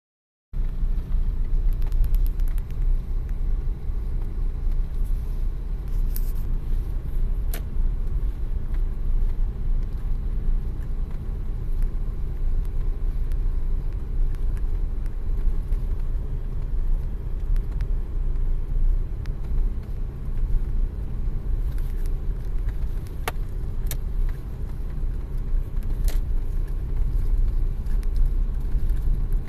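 Car driving slowly along a snowy unpaved road, heard from inside the cabin: a steady low rumble of engine and tyres, with a few sharp clicks.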